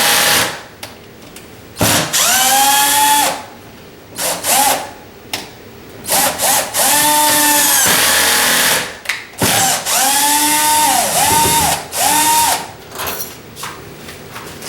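Power drill driving screws into the lock's mounting plate in about eight short bursts, its motor whining up in pitch at each trigger pull and dropping as it stops. One screw runs in while the other will not, which he guesses is cross-threaded.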